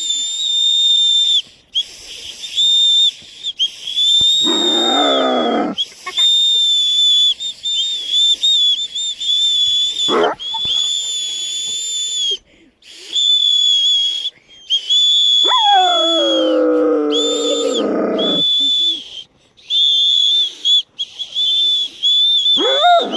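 Children whistling a high note again and again while a Caucasian shepherd dog howls along, each howl sliding downward in pitch. The dog howls about three times, the longest about two-thirds of the way in, and starts another near the end.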